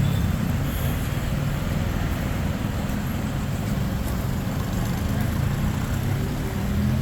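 Steady vehicle engine and road-traffic noise, with a low wavering engine tone.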